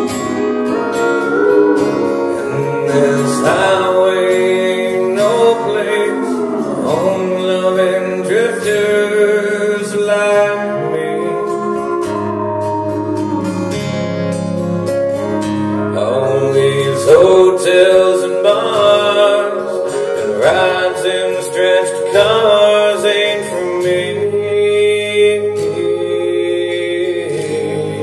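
Live band playing an instrumental passage, with guitar notes sliding up and down between pitches over a steady bass line.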